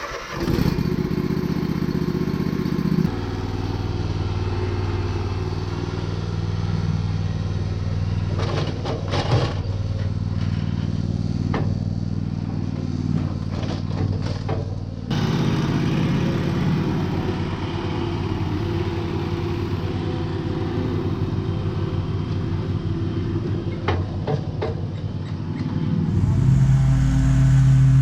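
Riding lawn mower engine running steadily, its note shifting a few times and growing louder near the end, with some clattering now and then.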